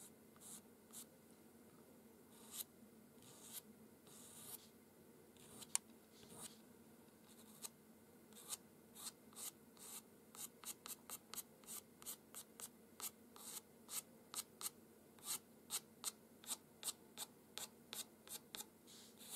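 Pastel pencil flicking short strokes across paper to lay in single hairs: faint scratchy scrapes, sparse at first, then quicker, about three a second, from around halfway.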